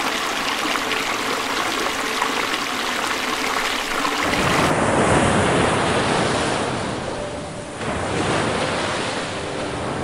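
Shallow water splashing, then from about four seconds in, ocean surf washing onto a sandy beach in slow swells.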